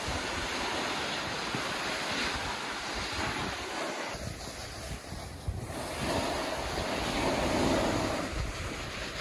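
Wind buffeting the microphone, a steady rushing noise with gusty low rumbles that swells about seven seconds in.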